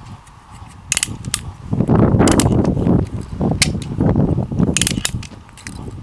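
3D-printed spring-lever snowball gun being fired and reloaded in quick succession, about one shot a second: sharp plastic snaps and clicks of the leaf-spring lever mechanism, with loud handling noise through the middle.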